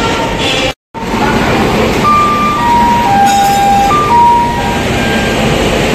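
Loud steady rumble and hiss of a passenger train journey, cutting out for a moment just before a second in. From about two to four and a half seconds in, a short chime of clear single tones steps down in pitch, then repeats in part.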